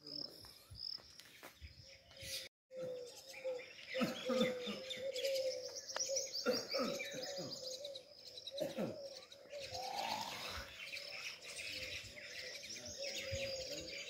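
Many birds chirping and calling together at once, a dense mix of high twitters over a lower, wavering call. The sound drops out completely for a moment about two and a half seconds in.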